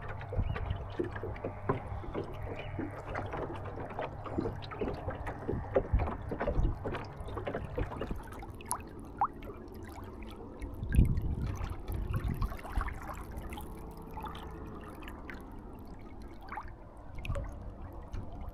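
Water slapping and gurgling against the hull of a small sailing dinghy under way, with many small irregular splashes over a low rumble. The loudest splash comes about eleven seconds in.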